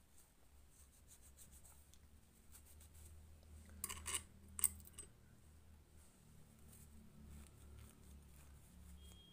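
Small metallic clicks from a sewing machine's presser foot and needle plate being handled, a few together about four seconds in and one more just after, over faint rubbing of a cloth wiping lint off the metal.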